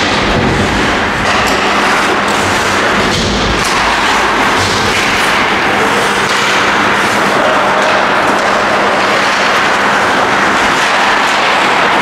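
Ice hockey game in an ice arena: a steady noise of skates scraping the ice, with scattered knocks of sticks and puck over a steady low hum.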